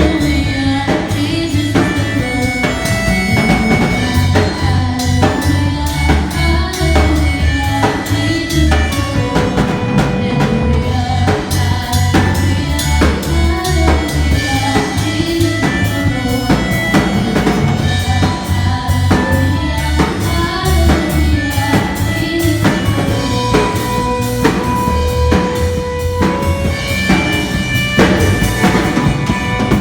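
Live worship band playing a song at a sound check: a drum kit keeps a steady beat over a strong bass line, with singing.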